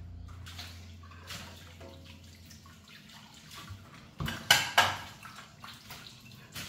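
Dishes being washed by hand in a stainless steel sink: light scrubbing and small clinks, then a louder clatter with two sharp clinks about two-thirds of the way through as glass dishes are set down in the wire dish rack.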